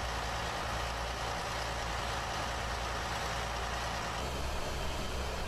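Army cargo truck's engine idling steadily, a low even hum under a broad hiss.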